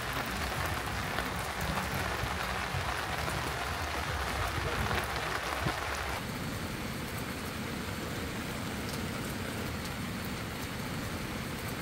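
Steady rain falling on a camp tarp and tents as an even hiss. About six seconds in, the sound turns quieter and duller.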